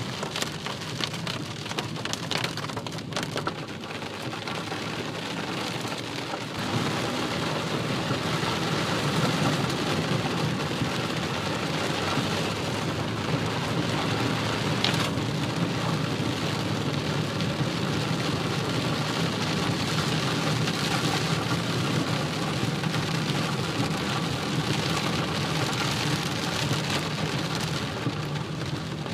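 Heavy rain falling on a moving car's roof and windscreen, heard from inside the car, a steady hiss that grows louder about six seconds in.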